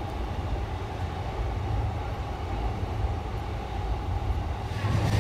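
Steady low rumble of a train running on an elevated steel railway viaduct, mixed with city noise. It grows a little louder and brighter near the end.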